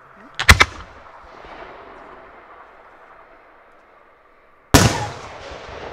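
A 200 mm (8-inch) aerial firework shell is fired from its mortar, a sharp double bang about half a second in. About four seconds later the shell bursts overhead with a loud boom that fades away in a long, echoing tail.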